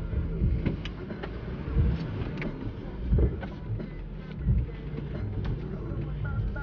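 Jeep Wrangler engine running low and steady as it crawls over a rough dirt trail, with irregular knocks and rattles from the body and suspension.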